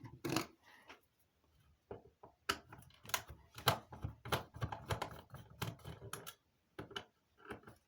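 Irregular clicks and light knocks of a tool and parts being handled as a Nokia TMX-1LS radio telephone's housing is opened. They come thick and fast from about two seconds in, after a short pause.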